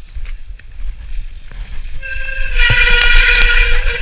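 Mountain bike disc brakes on a wet, muddy descent: the bike first rolls and rattles over the dirt track, then about two seconds in the brakes start a loud, steady, high-pitched squeal. The squeal is typical of rain-soaked pads and rotors. A couple of knocks from the bike hitting bumps sound over it.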